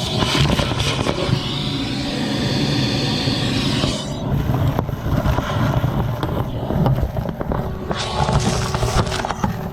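Vacuum cleaner running and sucking up dirt and debris, with some scraping of the nozzle. Its airy hiss drops away about four seconds in and comes back near the end.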